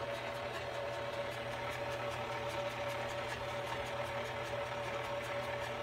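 KitchenAid stand mixer running steadily: an even motor whine and hum, with a faint regular ticking several times a second as the attachment turns in the stainless steel bowl.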